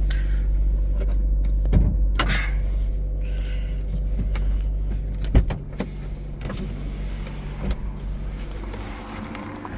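Chevrolet Sonic's 1.4 L turbo four-cylinder, freshly rebuilt with a new crank and bearings, idling steadily without crank knock. A few sharp knocks sound over it, the loudest about five and a half seconds in, after which the engine's low hum is fainter.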